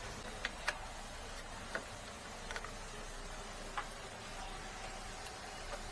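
A handful of light, irregular clicks from screws and a screwdriver as a replacement Y-board is screwed into a plasma TV chassis, over a faint steady hiss.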